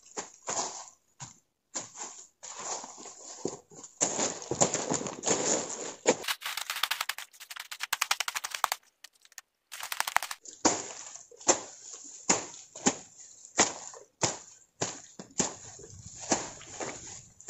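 Small hand hoe chopping into soil, roots and dry leaf litter, each blow a sharp thud with scraping and rustling as the ground is cleared. Near the middle comes a stretch of denser, rapid scraping and crackling broken by a gap of about a second; afterwards the blows fall about once a second.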